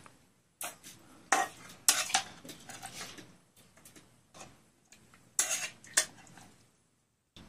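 Steel serving spoon scraping and clinking against a steel kadai and steel dishes while curry is ladled out: a run of sharp metallic clinks with softer scrapes between them.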